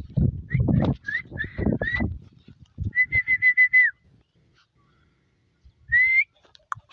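A person whistling to call a German shepherd puppy: several short whistles over low rumbling noise in the first two seconds, then a rapid run of quick whistles on one note about three seconds in, and a single rising whistle near the end.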